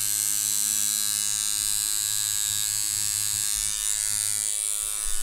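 Deki Irons Sensei rotary tattoo machine running at about 7 volts, a steady electric buzz.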